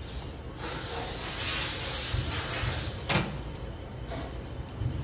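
Compressed air hissing for about two and a half seconds from a pneumatic screen printing machine as it cycles, ending in a short knock about three seconds in.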